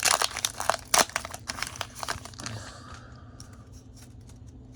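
Foil booster-pack wrapper crinkling and tearing as a Pokémon card pack is handled and opened, dense crackles that die down about three seconds in.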